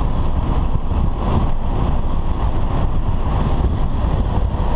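BMW F10 5 Series driven hard on a race track, heard from inside the cabin: a loud, steady mix of engine, tyre and wind noise, mostly low rumble, with buffeting on the microphone.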